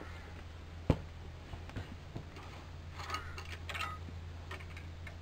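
Light handling sounds at a small lawn mower engine: one sharp click about a second in, then soft clicks and scraping as hands work at the top of the engine, over a steady low hum.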